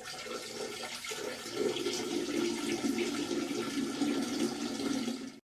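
Rushing water that starts abruptly, grows a little louder after about a second and a half, and cuts off suddenly after about five and a half seconds.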